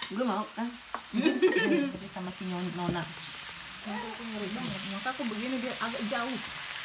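Chicken, beef and onions sizzling on a tabletop Korean barbecue grill pan, with a steady hiss. Voices are talking over it, and there are a couple of short clicks.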